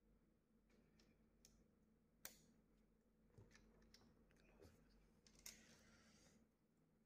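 Faint, scattered clicks of plastic and sheet-metal parts being handled on a disassembled HP LaserJet Pro M227fdw printer, over a low steady room hum. The sharpest click comes a little over two seconds in, and another near five and a half seconds is followed by a brief scratchy noise.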